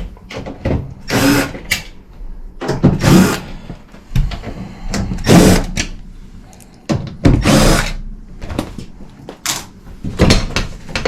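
Handheld power screwdriver run in about six short bursts, spaced a second or two apart, as screws are taken out of an air handler's access panel.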